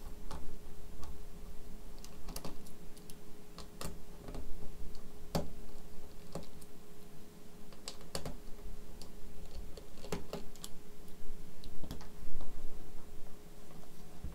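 Irregular light clicks and taps, a few a second at most and unevenly spaced, over a steady faint hum.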